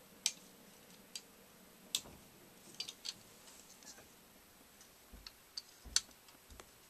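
Faint, irregular clicks and taps of plastic Lego bricks being handled while a homemade Lego rubber-band pistol is loaded, with a few sharper clicks near the end.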